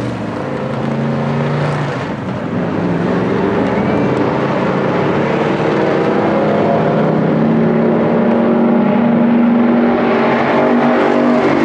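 Stock car V8 engines running loud as two race cars pull away, the engine note bending up and down in pitch as they accelerate.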